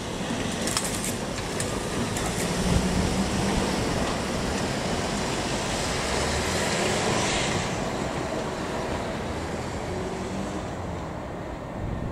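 Cars and a small van driving across a railway level crossing one after another: road traffic noise of engines and tyres, swelling as each vehicle passes and easing toward the end.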